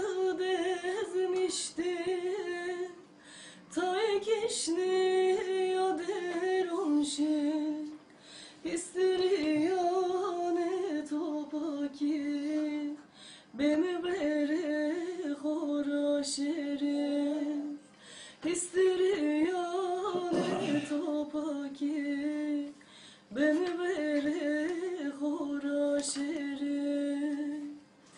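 A woman singing a Zazaki folk song unaccompanied, in phrases of held, wavering notes with short pauses for breath between them.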